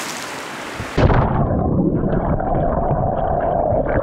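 The hissing spray of a big splash settling on the surface of a river pool. About a second in it cuts to a muffled, rumbling underwater sound of bubbles and water moving around a swimmer, heard from below the surface.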